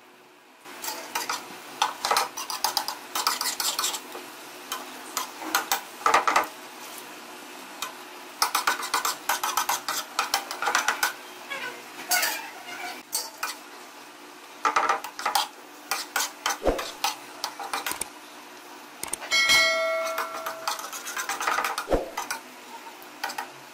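Metal spatula scraping and clattering against a metal tawa (flat griddle pan) as chicken pieces in masala are turned and stirred, in irregular strokes with pauses. A short metallic ringing tone sounds about two-thirds of the way through.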